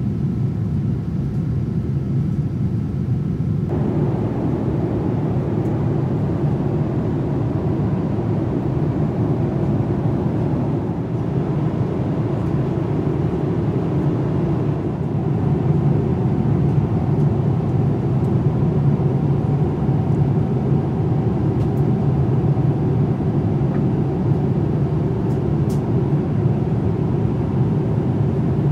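Steady rumble of a Boeing 787-9's engines and rushing air heard from inside the passenger cabin. It grows fuller about four seconds in and a little louder about halfway through, with a faint steady whine.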